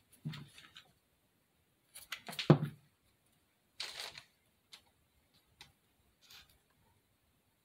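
Hands handling small craft pieces on a tabletop: a few scattered light clicks and rustles, with one thump about two and a half seconds in.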